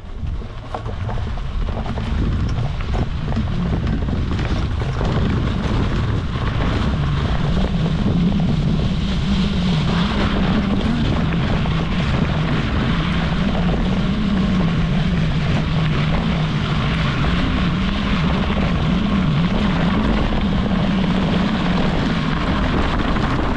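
Bicycle's knobby tyres rolling fast over a dirt and gravel track, a continuous hum that wavers with speed under a rush of wind and gravel noise. It builds up over the first two seconds as the bike gathers speed downhill, then holds steady.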